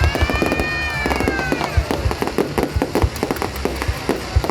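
Fireworks display going off, a dense irregular stream of bangs and crackles over a low rumble. A high whistling tone rises and falls during the first two seconds.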